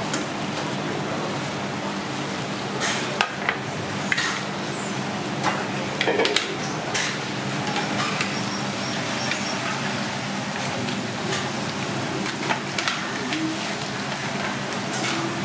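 Cooked giant isopod shell being broken apart and picked clean by hands in plastic gloves: scattered sharp cracks, clicks and crinkles, a quick cluster of them about six seconds in, over a steady low hum and hiss.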